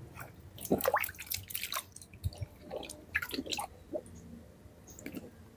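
Hands rubbing and turning plucked Muscovy duck carcasses in a basin of rinse water: irregular wet squishing, small splashes and drips.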